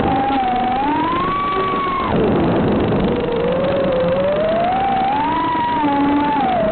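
FPV quadcopter's brushless motors whining in flight, the pitch climbing and falling with the throttle: it rises, drops sharply about two seconds in, then climbs again and eases off near the end.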